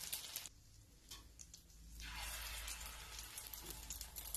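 Egg-coated chicken shami kababs shallow-frying in hot oil on a tawa: faint sizzling with scattered crackles and pops. It drops almost to silence about half a second in and resumes around two seconds in.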